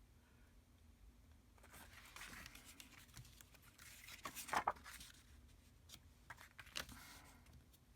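Faint rustling of paper and card stock being handled, with a few light taps and clicks, the sharpest near the middle.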